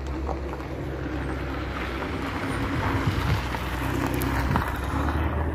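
A car engine idling steadily, with wind rumbling on the microphone.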